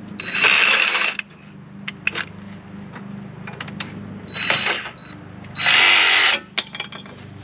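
Reciprocating saw (Sawzall) with a used thin-metal blade cutting into rusted Jeep frame steel in three short bursts, the first about a second long and the other two near the end, with knocks and clicks in between.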